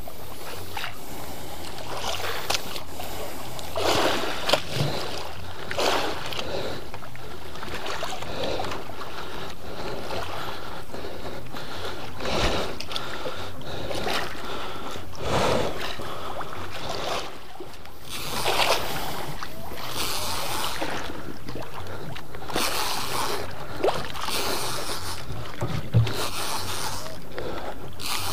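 Sea water sloshing and slapping against a small outrigger boat's hull with wind on the microphone: a steady rush with a short surge every few seconds.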